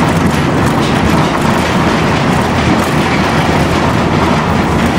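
Tram car running along street track, heard from inside the passenger cabin: a steady rumble of wheels on the rails, with faint clicks.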